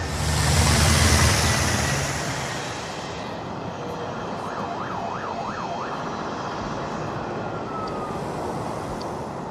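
Layered city ambience sound effects: steady traffic noise throughout, with a helicopter passing loudly in the first two seconds or so, then a police siren sweeping quickly up and down a few times around the middle.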